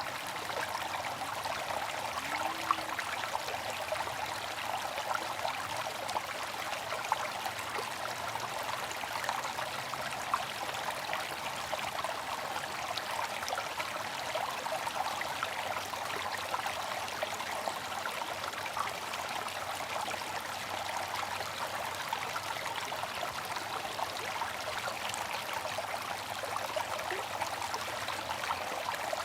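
Bamboo water fountain trickling steadily: continuous splashing of falling water with many small drips and plinks scattered through it.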